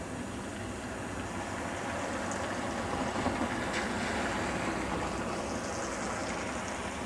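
Distant trains moving slowly through a rail yard, heard as a steady rumbling noise that swells slightly in the middle.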